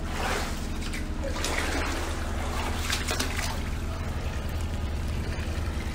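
Shallow flood water splashing and trickling in surges over the first few seconds, over a steady low hum.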